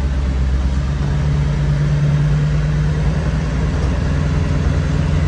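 Full-size Ford Econoline van's engine running steadily while driving, heard from inside the cab with road noise. The low engine note steps up in pitch near the end.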